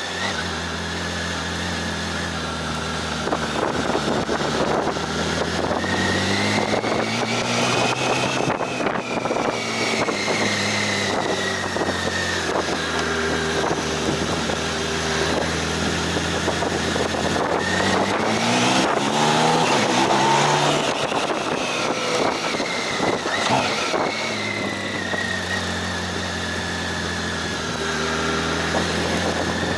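Motorcycle engine running under way, its revs rising and falling several times as the throttle opens and closes, with a sharp climb in revs about two-thirds of the way through.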